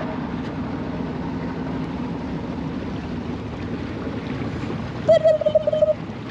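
Motorboat engine running steadily under way, a constant low hum with water and wind noise. About five seconds in, a short, high-pitched wavering whine rises briefly above it.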